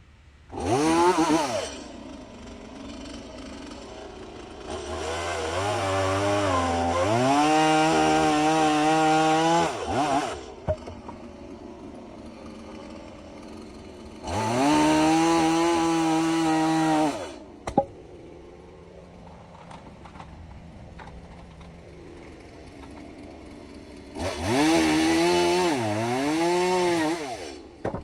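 Chainsaw revving up four times and dropping back to idle between runs; the second run is the longest, its pitch dipping and climbing again partway through.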